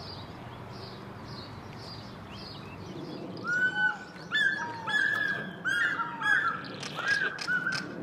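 Birds calling: faint, high chirps repeating for the first few seconds, then from about three seconds in a series of loud, short calls, one after another, which are the loudest sound.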